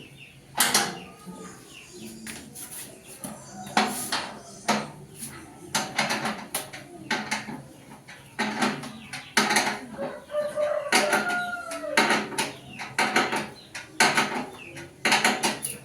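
Irregular metal clanks and knocks of sewing-machine stand parts being handled and fitted together. A chicken calls in the background about eleven seconds in.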